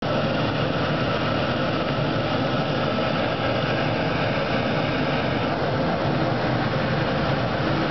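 Waste oil burner firing an open flame: a steady rushing noise of the blower fan and the burning oil jet. The higher hiss eases slightly about five and a half seconds in.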